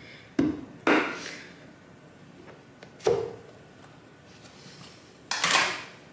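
Plastic clip tabs of a glass food-storage container's snap-lock lid being unclipped and the lid pulled off and set down: four sharp plastic clicks and knocks, two close together near the start, one about three seconds in and a longer, rattlier one near the end.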